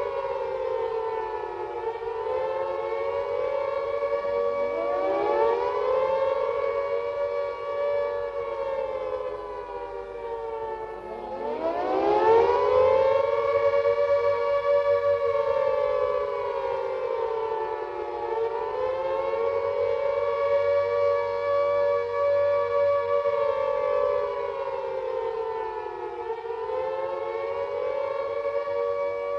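Civil defense sirens sounding a continuous all-clear tone: several sirens at slightly different pitches overlap and waver slowly. A siren winds up into the tone about four seconds in and another about eleven seconds in, the second making the sound loudest.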